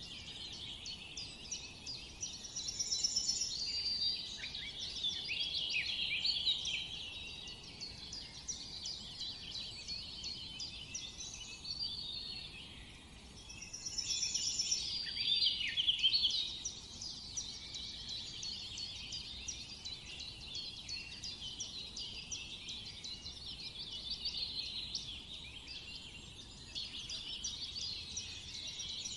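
A dense chorus of many small songbirds chirping and twittering over one another. It swells louder twice, a few seconds in and again about halfway through.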